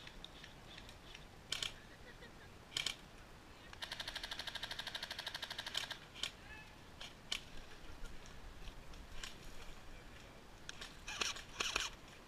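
An airsoft electric gun fires one full-auto burst of about two seconds, a rapid, even string of sharp cracks, a few seconds in. Scattered single sharp clicks come before and after it.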